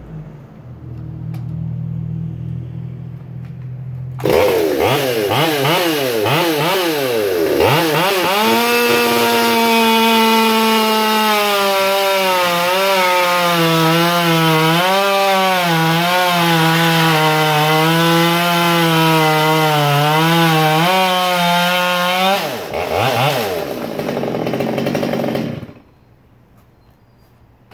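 Ported, modified Stihl MS 200T top-handle chainsaw idling, then revved hard about four seconds in and run at full throttle through a dry Douglas fir log, its pitch wavering under load for some fourteen seconds. It revs a few more times and then stops abruptly near the end.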